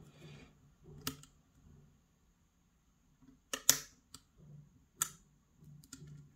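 Lock pick working the wafers inside a Bricard Supersureté à bille cylinder: a few sharp metallic clicks, about a second in, a louder pair near the middle and one more about five seconds in.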